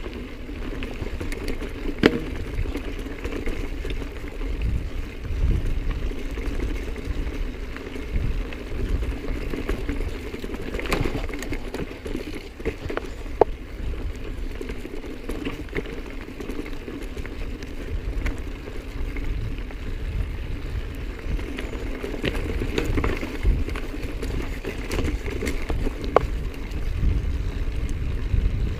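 Mountain bike rolling down a rocky dirt trail: a steady low rumble and rattle of tyres and frame over gravel and stones, with a few sharp knocks as the bike hits rocks.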